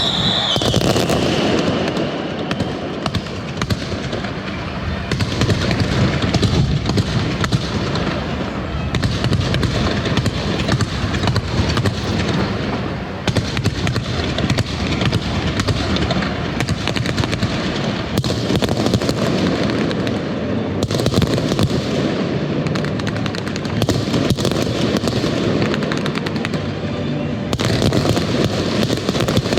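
Fireworks display: a dense, continuous barrage of bursts and crackling with no gaps.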